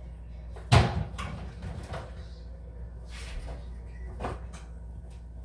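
Kitchen handling noises: a sharp knock a little under a second in, like a cabinet door or container being shut, followed by smaller clatter, then another knock a little past four seconds.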